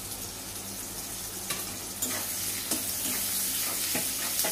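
Chopped onion and tomato sizzling in hot mustard oil in a steel kadai, with a few scrapes and knocks of the metal spatula as the mixture is stirred. The sizzle grows louder about two seconds in.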